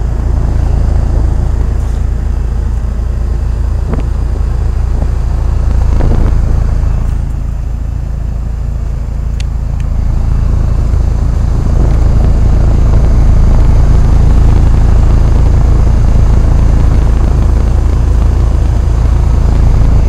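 1988 Heil heat pump outdoor unit running, still partly caked in ice, with a steady low hum that gets louder about twelve seconds in.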